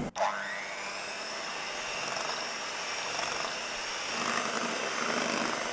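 Electric mixer running steadily with a faint high whine, its whisk beating cold whipping cream in a glass bowl. It grows a little louder and fuller about four seconds in.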